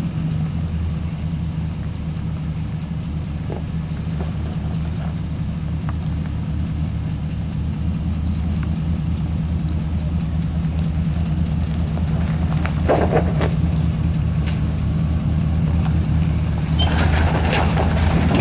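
Chevrolet 4x4 truck engine running steadily off-road, with a few short knocks and clatters about two-thirds of the way through and again near the end.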